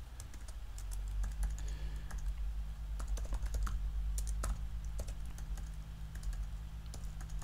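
Typing on a computer keyboard: irregular keystrokes, several per second with short pauses, over a low steady hum.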